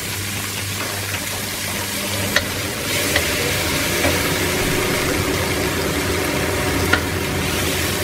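Spice paste and chopped food sizzling in a hot stainless steel wok while a spatula stirs and scrapes through it, with a few sharp knocks of the spatula against the wok.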